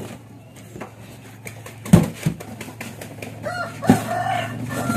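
Two sharp knocks about two seconds in, then a long, drawn-out bird call starting a little before the end.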